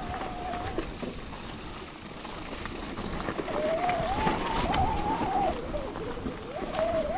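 Mountain bike riding over a rocky gravel trail: tyres crunching with scattered knocks and rattles. A steady whine that wavers slightly in pitch stops about a second in and comes back around three and a half seconds.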